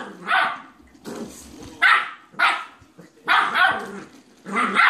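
Boxer puppy barking repeatedly, about six short barks spaced unevenly.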